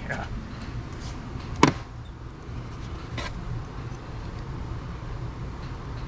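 Wire strippers working the insulation off an electrical wire: a sharp snap about one and a half seconds in and a fainter click about three seconds in, with a few small ticks, over a steady low hum.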